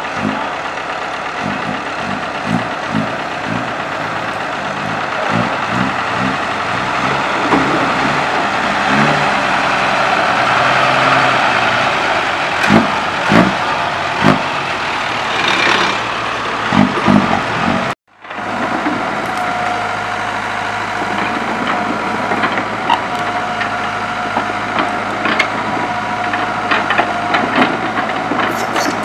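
An old ten-wheel diesel truck runs and moves with its flatbed trailer, with low thumps and several loud knocks and clatter. After a sudden cut, a Kobelco hydraulic excavator's diesel engine runs steadily with a thin steady whine and light clicks.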